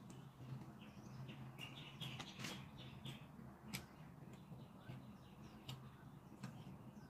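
Quiet chewing with soft, scattered mouth clicks while eating rice by hand, over a low steady hum.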